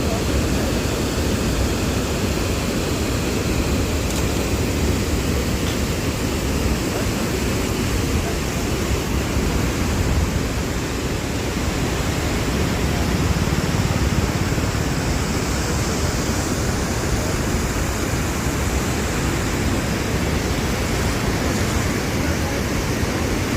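Water pouring over a dam as a waterfall: a steady, unbroken rush, heaviest in the low end.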